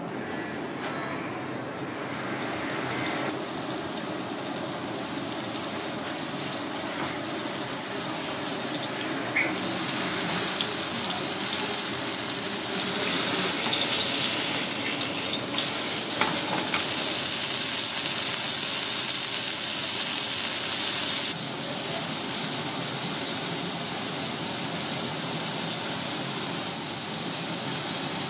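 Floured razorfish fillet frying in oil in a small iron pan, a steady sizzle. It grows louder about ten seconds in and drops back suddenly about two-thirds of the way through.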